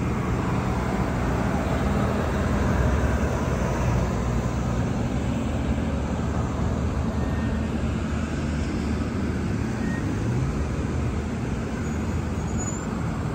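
Steady road traffic: cars and trucks driving slowly past through standing floodwater on a flooded city road, engines and tyres blending into a continuous noise.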